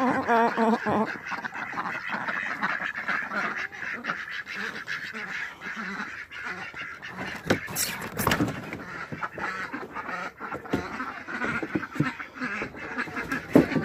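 A flock of ducks quacking, with a quick run of quacks right at the start and then continuous chatter from the flock. A few sharp knocks about halfway through.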